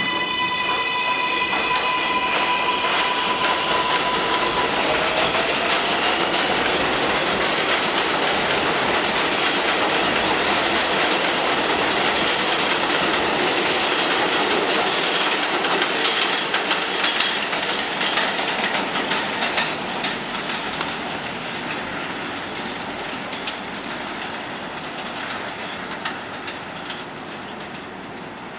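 R188 subway train on the 7 line pulling out and accelerating away: a high traction-motor whine holds for the first few seconds, with a second rising whine about five seconds in. Then wheels clatter over the rail joints, loudest about halfway through and fading as the train recedes.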